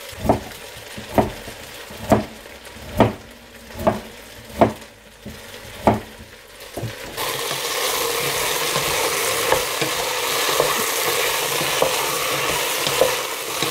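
A kitchen knife chopping broccoli stems on a plastic cutting board, about seven sharp strikes close to a second apart. About seven seconds in, vegetables start sizzling steadily in a stainless steel pot as they are stirred with a wooden spoon, frying with a little sugar to caramelise.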